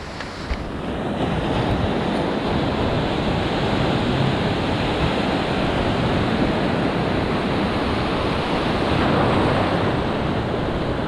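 Ocean surf washing up a sandy beach: a steady rush of breaking waves and foam.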